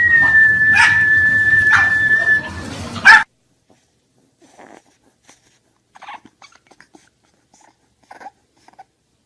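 A dog's long, steady, high-pitched whine with a few short barks over it, cut off suddenly about three seconds in. After that there are only faint, scattered small sounds.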